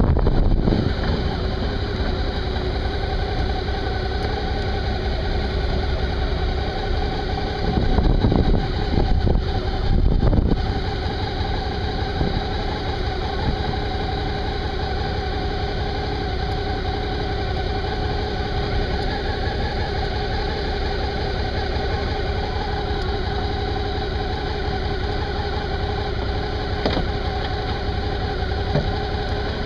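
Suzuki V-Strom motorcycle engine running steadily at low speed and idling, with brief louder swells about eight to ten seconds in.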